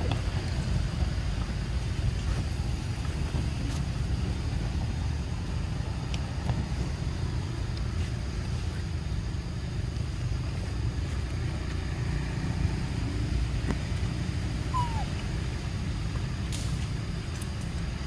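Steady low outdoor rumble, with a few faint clicks and one short high squeak about fifteen seconds in.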